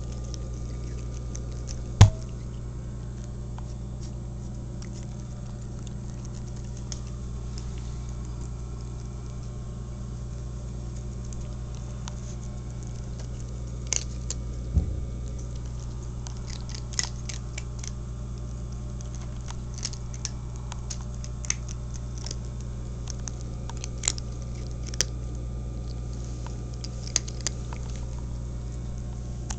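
Domestic cat eating dry kibble from a bowl: scattered crisp crunches over a steady low hum. A sharp knock comes about two seconds in and another near the middle.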